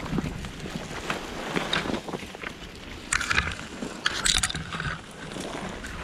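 Footsteps crunching through dry brush and leaves, with branches and clothing brushing past the microphone; two louder swishes come about three and four seconds in.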